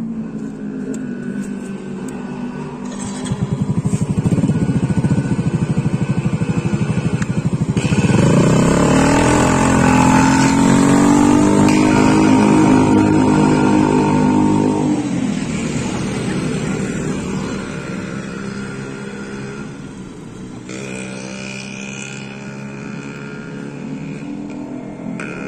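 Yamaha Soul GT 125 scooter's single-cylinder 125 cc engine accelerating on a test ride with its upgraded CVT (new front pulley, 8 g rollers). The revs pick up about three seconds in and climb again around eight seconds. They hold high, then die away after about fifteen seconds as the throttle eases, settling to a steady lower cruise.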